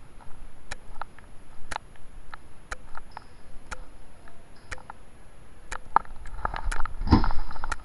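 Sharp ticking about once a second over faint rustling, with a louder muffled rustle or knock about seven seconds in.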